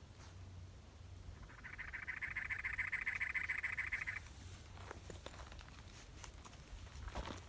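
A rapid, buzzy pulsing trill from an animal, lasting about three seconds, followed by a few faint clicks.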